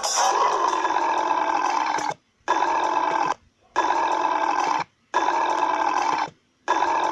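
A run of five long, rough burps, each lasting about a second or two and cut off abruptly, with short gaps of dead silence between them.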